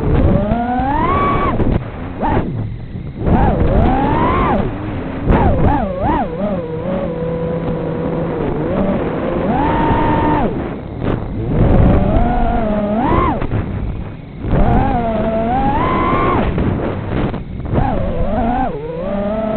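FPV quadcopter's motors and propellers whining, the pitch swooping up and down again and again as the throttle is punched and eased off, with brief drops where the throttle is cut.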